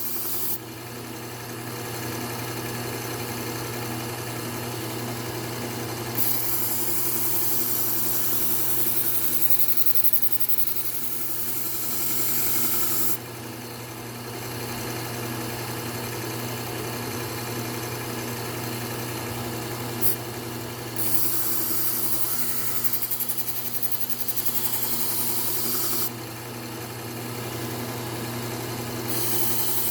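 Electric belt knife sharpener, a Work Sharp Ken Onion, running steadily, with a blade drawn along the abrasive belt in long grinding passes that add a bright hiss over the motor hum, about seven seconds and then about five seconds long, with another pass starting near the end. A single sharp click comes midway.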